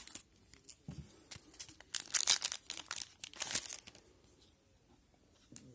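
A 2010/11 Panini Zenith hockey card pack wrapper being cut and torn open, crinkling in sharp bursts about two seconds in and again around three and a half seconds in.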